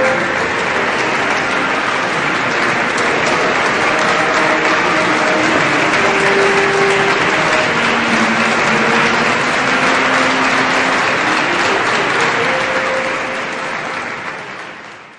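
Concert audience applauding, a dense steady clapping that fades out near the end.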